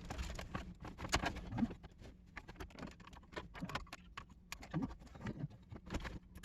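Scattered small clicks and taps of plastic dash trim and the HVAC control unit being handled and worked loose from the dash.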